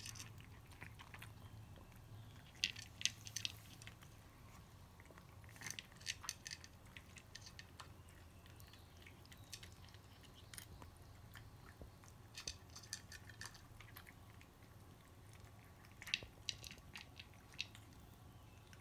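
Cats crunching dry kibble from their bowls, in short bursts of crisp crunches every few seconds over a low room hum.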